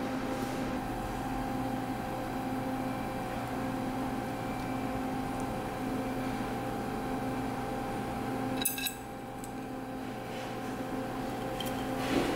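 Steady mechanical hum of a running appliance, with one short click about two-thirds of the way through.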